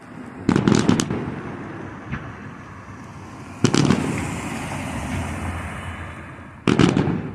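Fireworks exploding: a quick cluster of sharp bangs about half a second in, a single bang at about three and a half seconds, and another cluster near the end. Each is followed by a long, slowly fading echoing rumble.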